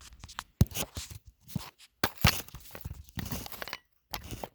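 Metal engine parts and hand tools clicking, knocking and scraping as valve gear is taken apart with a makeshift valve spring compressor, with two sharper knocks about half a second and two seconds in.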